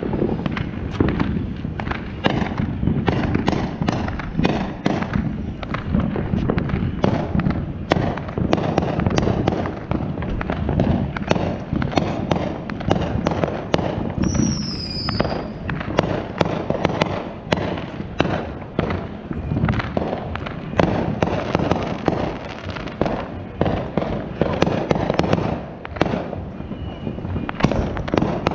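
Fireworks going off in quick succession: a dense, irregular string of sharp bangs, pops and crackles. A brief high whistle comes about halfway through.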